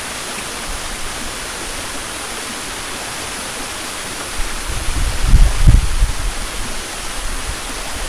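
Steady rush of water from a small rocky stream flowing over stones. Low rumbling buffets on the microphone come in about halfway through.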